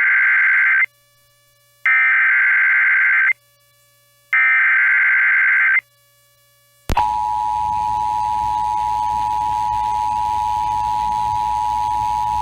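Emergency Alert System SAME header: three bursts of digital data tones, each about a second and a half long and about a second apart. About seven seconds in, the steady two-tone EAS attention signal starts over a background of radio hiss. Together they mark the start of an emergency alert, here a severe thunderstorm watch.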